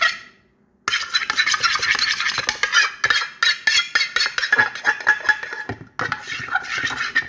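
Small spoon stirring a thick toothpaste-and-detergent slime mixture, scraping and clicking rapidly against the container. The stirring stops for about half a second near the start and pauses briefly near the end; it is a not very nice noise.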